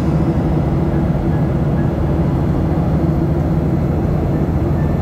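Steady low rumble of a moving vehicle, even throughout.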